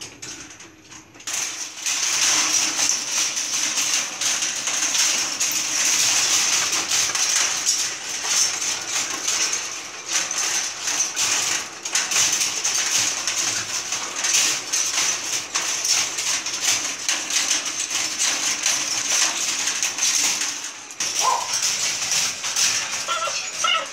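A loud, steady rushing noise full of small clicks starts abruptly about a second in. Near the end a Belgian Malinois puppy in a wire crate gives a short rising whine.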